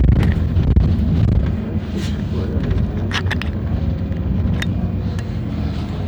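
Inside a moving city bus: steady low engine and road rumble, with a few sharp rattles and clicks from the bus interior.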